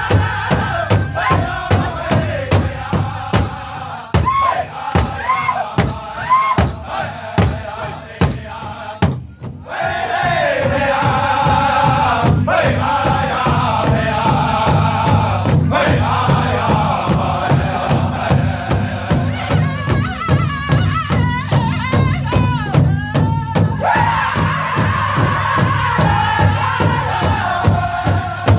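Several large powwow drums beaten together in a steady beat of about two strikes a second, with a group of men singing high, falling phrases over them. The drumming and singing drop briefly about nine seconds in, then carry on.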